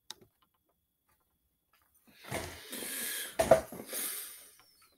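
A single click, then, from about two seconds in, a couple of seconds of rustling and handling noise close to a headset microphone, with one sharp thump in the middle as the desk or headset is touched.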